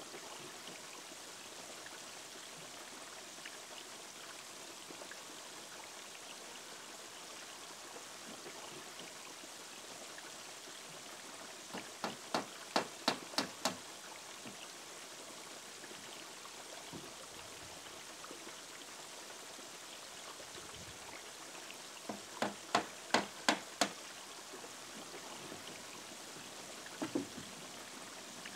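Hammer driving nails into the wooden roof trim of a plank cabin. It comes in two quick runs of about seven blows each, about twelve and twenty-two seconds in, with a couple more blows near the end. Under it all runs steady trickling water.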